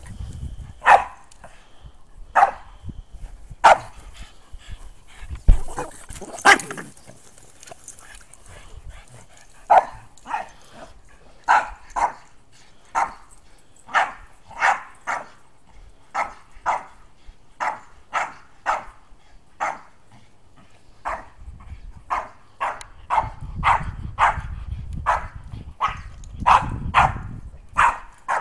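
A dog barking over and over, short sharp barks mostly about one a second, with a pause a few seconds in and quicker runs later. A low rumble sits under the last few seconds.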